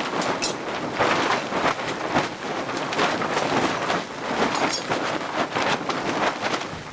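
Strong gusty wind: a continuous rushing rumble that swells and dips, with quick gusts buffeting the microphone.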